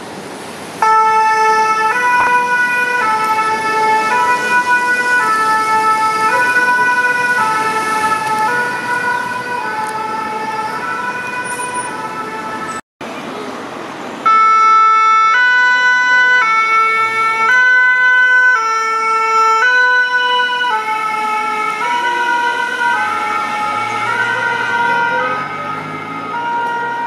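Fire brigade ambulance's two-tone siren, alternating between two close pitches about once a second. About halfway through it cuts out for a moment and comes back louder from a second ambulance, fading a little near the end.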